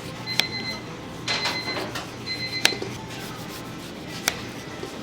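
Scattered sharp clicks and knocks of kitchen handling, several with a brief ringing clink, over a faint steady background and light music.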